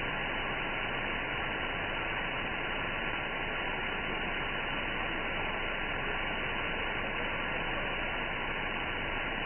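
Shortwave radio static: a steady, even hiss from an SDR receiver tuned to an empty HF amateur-band frequency, with no signal on it between transmissions.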